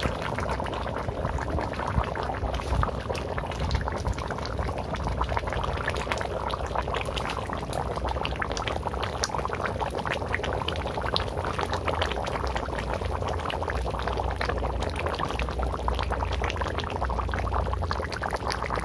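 Thick chicken curry gravy with potatoes boiling in a large kadai: a steady bubbling thick with small pops, over a low hum.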